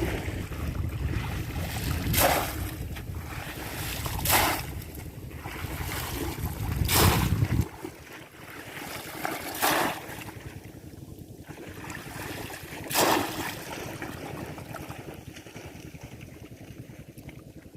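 Water splashing in strokes about every two to three seconds, as a bamboo polo fish trap is plunged into shallow water. Wind rumbles on the microphone until about halfway, then cuts off.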